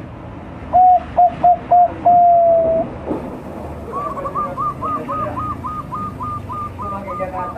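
Five-month-old zebra dove (perkutut, Bangkok line) cooing: four short notes and then one long held note, the loudest part. From about the middle, a fainter, quicker run of about a dozen higher notes follows, roughly four a second.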